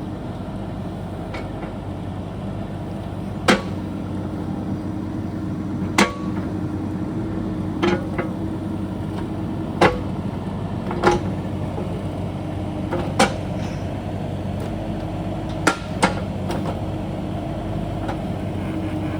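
A compact excavator's engine runs steadily, with a sharp metallic clank about every two seconds as the machine works.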